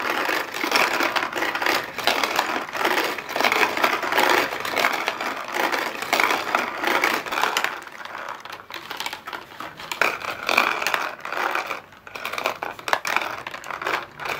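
Hand-cranked paper-craft garapon lottery drum being turned, small plastic balls rattling and tumbling inside the cardboard drum, with balls dropping out and clattering down a cardboard bingo board. Dense, continuous clatter, a little quieter from about eight seconds in.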